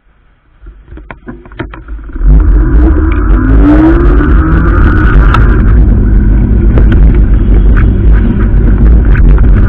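A 750 W fat-tyre e-bike pulling away, with loud wind noise on the microphone from about two seconds in. Over it, the electric motor's whine rises in pitch as the bike gathers speed. A few sharp clicks come just before it sets off.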